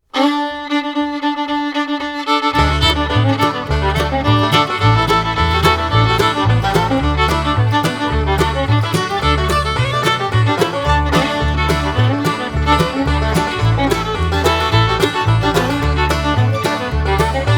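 Upbeat disco dance music. A single held note opens, then a bass line and a steady beat come in about two and a half seconds in.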